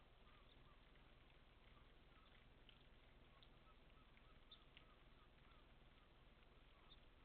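Near silence: very faint outdoor ambience of light rain, with scattered soft drop ticks and faint small bird chirps.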